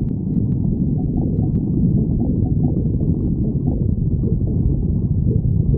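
Stomach growling: a continuous low gurgling rumble, with short squeaky gurgles breaking through during the first few seconds.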